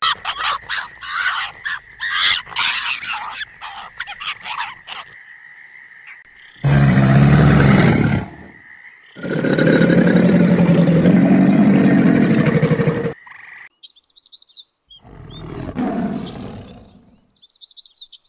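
A string of separate animal calls: rapid chirping and clicking at first, a short loud low call, then a long low call lasting about four seconds, and quick high bird chirps near the end.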